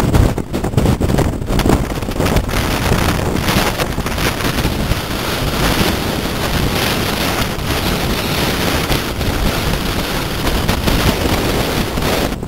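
Strong coastal wind buffeting the microphone, fluttering in gusts for the first couple of seconds and then blowing as a steadier rush, mixed with the surf of a rough sea.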